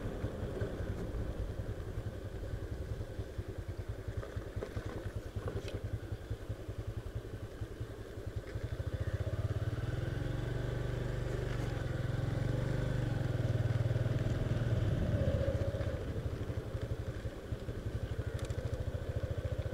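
Motorcycle engine running with a steady low pulse. It grows louder from about halfway through, then eases off again near the end.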